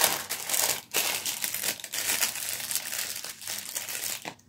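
Paper crinkling and rustling as a small perfume bottle is wrapped by hand, the paper crumpled and folded around it; the sound cuts off abruptly near the end.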